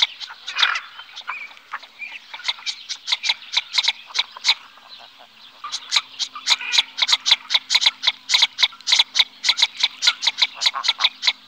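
Northern shoveler calling: a long run of short, dry clicking notes, several a second, thinner for a few seconds early on and then dense again.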